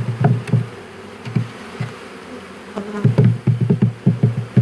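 Honeybees buzzing as a bee package is shaken and knocked to tip the bees into a hive, giving irregular dull thumps: a few in the first half-second and a denser run in the last second and a half.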